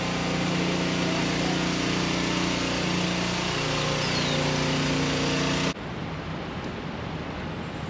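A steady engine drone, even in pitch, over a hiss of outdoor background noise, which cuts off abruptly near the end and leaves quieter outdoor ambience.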